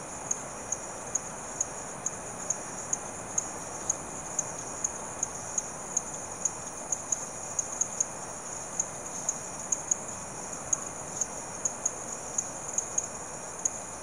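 Evening chorus of frogs and insects: a steady high-pitched insect drone with sharp, high chirps repeating about three times a second, over a dense, even chorus lower down.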